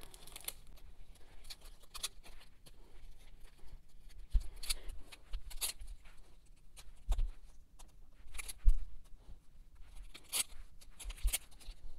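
Crinkling and clicking of iron-on vinyl cutouts on stiff clear plastic carrier sheets as they are handled and laid onto a sweatshirt, with a few soft thumps as they are set down.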